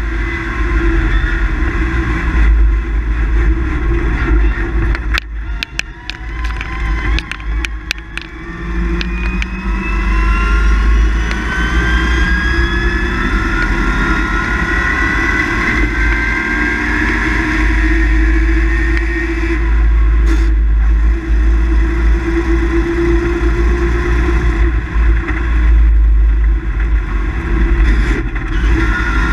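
GAZ 53 rally car's engine heard from inside the cabin at full speed. It drops back for a few seconds early on, with a cluster of sharp clicks, then pulls hard in one long rising sweep, breaks off briefly at a gear change about twenty seconds in, and pulls on again.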